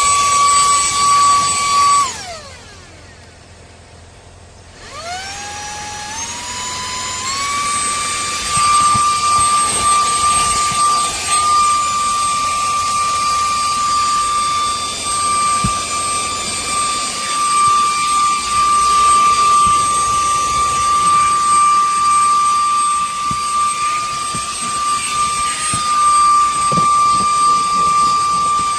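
Cordless handheld vacuum cleaner's high-speed motor running with a high, steady whine. About two seconds in it is switched off and winds down, then about five seconds in it starts again and climbs in a few steps to full speed.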